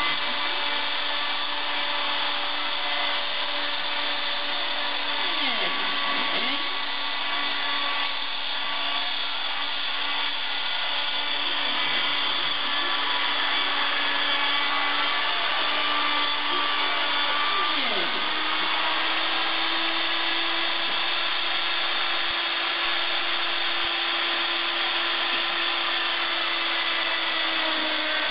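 Homemade CNC router running steadily while it cuts circles in a board: the router spindle motor drones on, and the stepper motors' whine slides down in pitch and back up every few seconds as the axes slow, reverse and speed up again.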